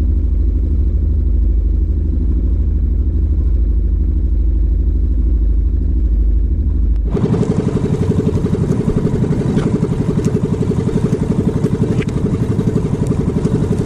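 7 hp Golden Horse marine engine driving an outrigger boat at speed, running steadily. About seven seconds in, the sound changes abruptly from a deep drone to a brighter, closer, rapidly pulsing engine note.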